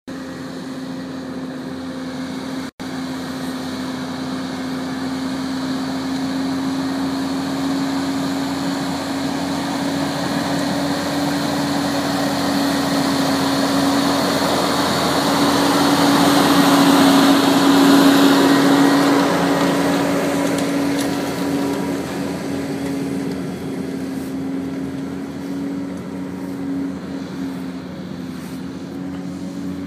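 Fendt tractor's diesel engine running steadily under load while pulling a reversible plough through the soil. It grows louder as the tractor passes close, about halfway through, then fades as it moves away.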